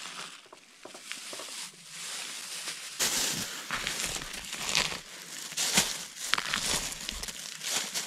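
Thin plastic bag and plastic sheet crinkling and rustling as hands gather scraped pine resin and bark crumbs; the crinkling gets louder from about three seconds in.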